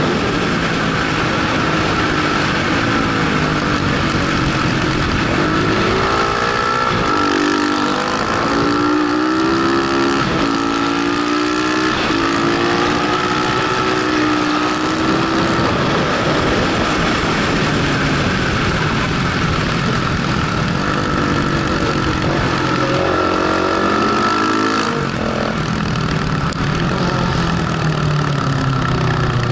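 Onboard sound of a KTM 690 SMC's single-cylinder engine under way, the revs rising and falling repeatedly as the rider accelerates, shifts and rolls off for bends, over a steady rush of wind noise.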